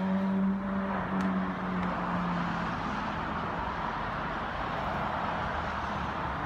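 Honeybees buzzing at an open hive: a loud, steady hum from a bee close by fades out over the first two seconds or so, leaving an even, softer buzz.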